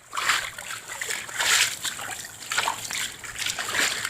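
Legs wading through deep floodwater, with a splash and slosh at each stride, about one a second.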